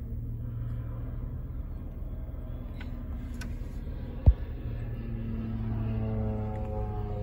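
Crop-dusting airplane's engine and propeller droning as it flies low past, its tones sliding down in pitch over the last couple of seconds, heard from inside a vehicle over a steady low rumble. A single sharp thump about four seconds in.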